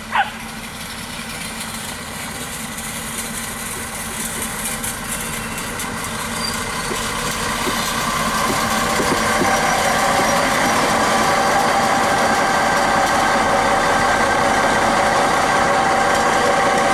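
Diesel railcar (a Regio-Shuttle type) approaching slowly and rolling close past: its engine hum grows steadily louder for about ten seconds, then holds steady with a whining drone. A dog yelps once right at the start.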